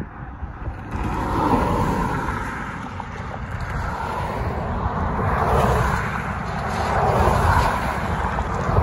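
Road traffic passing: cars and a pickup truck driving over the railroad crossing close by, with tyre and engine noise swelling as each one goes past. There is some wind on the microphone.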